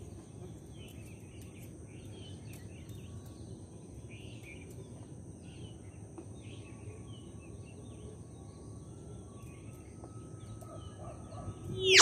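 Outdoor background noise, a steady low rumble with faint, scattered bird chirps and a thin steady high tone. Near the end comes a sudden loud sound effect with rising sweeps.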